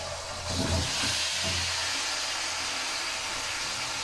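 Raw chicken pieces tipped into hot ghee in a wok. A few soft thuds about half a second in, then a loud, steady sizzle as the meat starts to fry.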